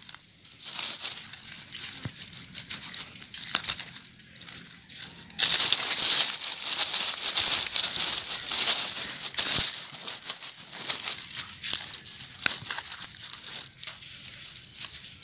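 Hands digging sweet potatoes out of dry, crumbly soil and dead leaves close to the microphone, with scraping, crackling and rustling. About five seconds in the crackling turns louder and denser for four seconds or so, then falls back to scattered scrapes and clicks.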